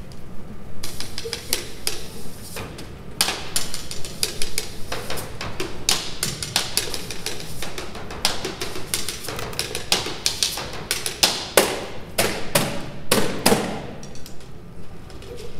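A run of irregular, sharp knocks and taps on hard objects, several a second. They start about a second in, grow loudest about three quarters of the way through, and thin out near the end.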